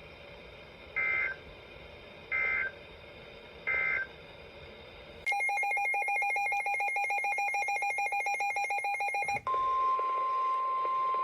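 Emergency Alert System signalling between two weather warnings. First come three short end-of-message data bursts, the warbling SAME code tones about a second and a half apart. About five seconds in, a harsh buzzing electronic alert signal sounds for about four seconds. It gives way to a steady single-pitch NOAA Weather Radio warning alarm tone.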